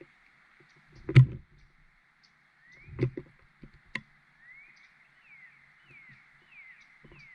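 A few sharp knocks and thumps on the bird feeder as a bird moves about on it, the loudest about a second in. Over a faint steady hiss, short descending bird chirps repeat about twice a second in the second half.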